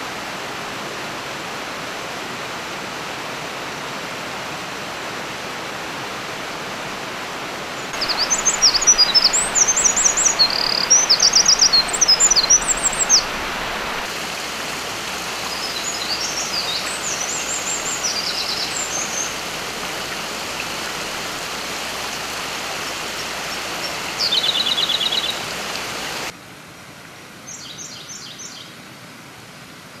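Steady rushing background noise with bursts of fast, high songbird song from a Eurasian wren and a Siberian blue robin. The song comes about eight seconds in and again around the middle, then a short trill; after a sudden drop in the background, a few fainter notes follow.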